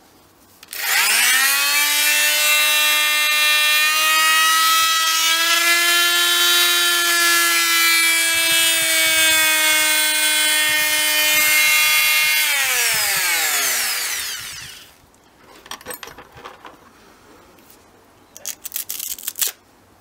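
Bosch PMF 190E mains-powered oscillating multitool with a cutting blade fitted, running free with nothing to cut. It is a buzzing whine that climbs in pitch as it spins up about a second in, holds steady for about eleven seconds, then falls in pitch and dies away as it is switched off. Near the end come a few light clicks and rattles as the attachment is changed.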